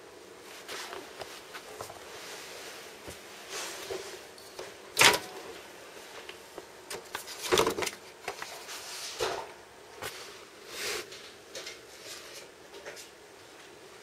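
Handling noise: rustling with a few sharp knocks and clicks, the loudest about five seconds in and another about two and a half seconds later.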